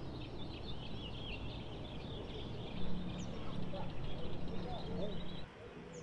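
Outdoor ambience: small birds chirping rapidly and repeatedly over a steady background hum of outdoor noise, which drops away about five and a half seconds in.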